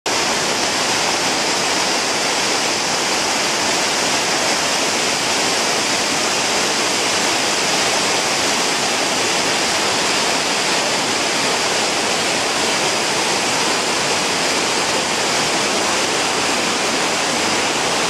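Rushing water of a shallow river spilling over small waterfalls and rocky cascades, a steady, unbroken rush.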